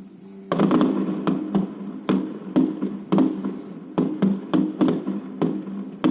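Electronic music with a steady synth drone and sharp beat hits, starting suddenly about half a second in.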